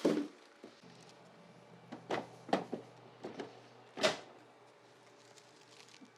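Several hard plastic knocks and clicks, the loudest right at the start and about four seconds in, as an M18 12.0 Ah High Output battery pack is handled and slid into the cordless table saw's battery port. A faint low hum runs underneath.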